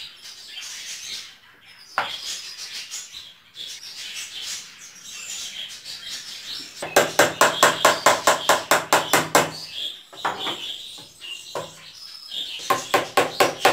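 Hammer driving small nails into a glued wooden strip with quick, light, evenly spaced taps, about six a second. One run lasts about two and a half seconds starting some seven seconds in, and a shorter run comes near the end.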